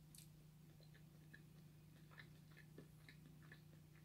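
Near silence: faint wet mouth clicks and soft chewing from a person eating a spoonful of chunky ice cream, over a low steady room hum.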